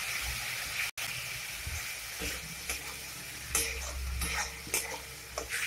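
Metal spatula stirring and scraping a spice masala around a metal kadai, with a steady sizzle as the ground spices fry in oil with a little water added; the spatula scrapes against the pan now and then.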